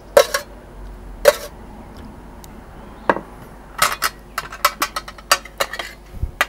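Metal spoon clinking and scraping against a stainless steel tray of cooked white asparagus: two ringing clinks in the first second and a half, then a quicker run of small clicks and taps in the second half as spears are lifted with the spoon.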